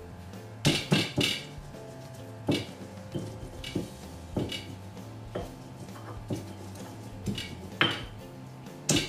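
Stone pestle (ulekan) knocking and grinding against a stone mortar (cobek), crushing shallots, garlic, chillies and candlenuts into a spice paste. The sharp stone-on-stone knocks come at an irregular pace, about one a second and sometimes in quick pairs.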